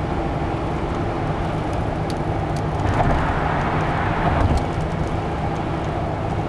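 Steady road and engine noise of a moving car, heard from inside the cabin, with a brief swell in the rushing about halfway through.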